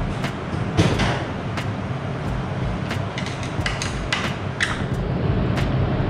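Metal hand tools clinking and knocking as they are picked up and handled, with a louder knock about a second in and a run of clicks near the middle. Underneath runs a steady low hum of workshop room noise.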